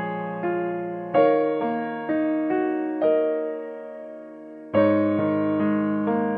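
Background piano music: a slow melody of struck notes that ring and fade, with new notes every half second or so, easing into a quieter lull before a fresh chord near the end.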